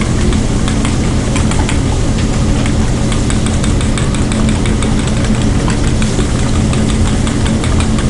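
Eggs being beaten by hand in a stainless steel bowl: quick, light clinks of the utensil against the metal, several a second. Underneath runs a loud, steady mechanical hum.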